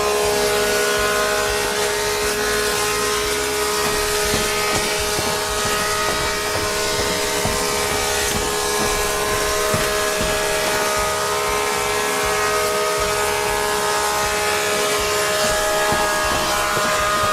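A motor running steadily: a constant hum with a hiss over it. It cuts in and cuts off abruptly.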